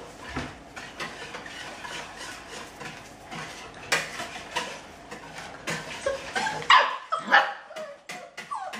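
Bernese mountain dog puppies yipping and whining for their food, with a few loud high yelps about two-thirds of the way through. Light clattering runs underneath.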